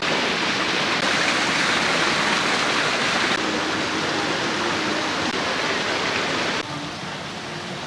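Steady loud rush of falling water, like a garden waterfall or fountain, starting abruptly and dropping suddenly to a quieter hiss about six and a half seconds in.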